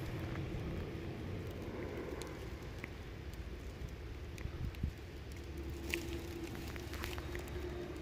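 Rustling and light crackling of dry grass, over a steady low rumble of wind on the microphone, with a few faint scattered clicks.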